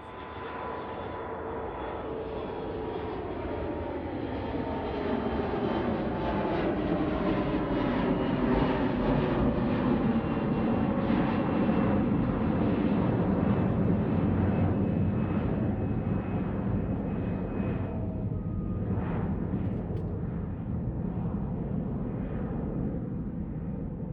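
Mitsubishi CRJ-700's twin GE CF34 turbofans at takeoff thrust as the jet passes by. The engine whine slides steadily down in pitch over a loud rushing noise, swelling toward the middle and then fading.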